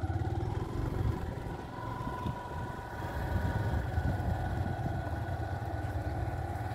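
Small motorcycle engine running steadily at low revs, a continuous low rumble.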